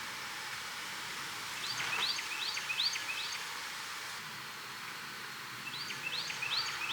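A songbird singing two phrases of about five quick repeated notes each, one near the start and one near the end, over a steady outdoor hiss.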